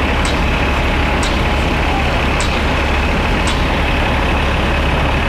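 Fire apparatus engines running steadily to drive their pumps and aerial ladder, a loud, even low rumble. Short hissy ticks come about once a second over it.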